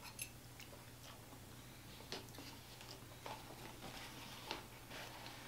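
Quiet room with a low steady hum and a few faint, short clicks and taps from a fork and a paper noodle cup being handled and set down on the table.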